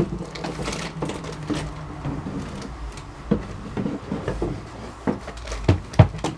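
Wooden chair being manoeuvred through a doorway: an irregular series of knocks and clunks of wood striking the frame, the two hardest near the end.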